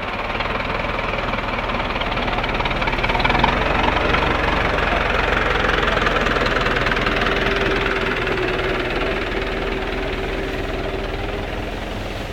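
An engine running steadily. It grows louder a couple of seconds in, then slowly fades, with a steady hum coming through in the middle.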